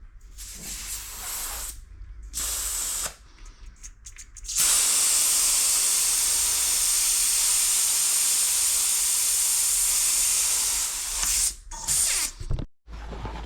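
Aerosol spray-paint can hissing: two short sprays, then one long steady spray of about six seconds, then a couple of short sprays again.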